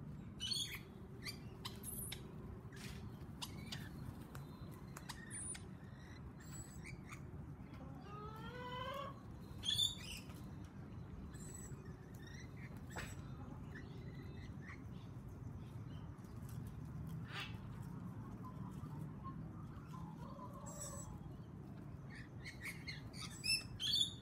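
Short high chirps and calls from a mixed flock of rainbow lorikeets, sulphur-crested cockatoos, an Australian magpie and a hen feeding on the ground, with scattered light clicks. A louder run of rising call notes comes a little before ten seconds in, and a cluster of chirps near the end.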